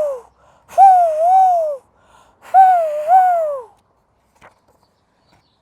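A woman's voice making the howling wind of a snowstorm, "hoooo-woooo": the tail of one long wavering hoot, then two more, each swooping up and down twice. The hoots stop a little past halfway through.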